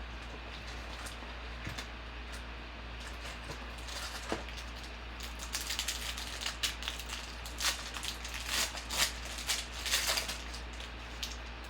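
Trading-card packs and cards being handled: a dense run of crinkling, crackling clicks, strongest in the second half, over a steady low electrical hum.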